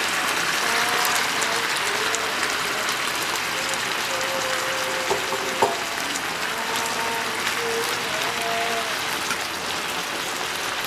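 Thin beef steaks with freshly added onion, green bell pepper and tomato sizzling in their juices in a skillet, a steady hiss. A couple of light clicks about five and a half seconds in.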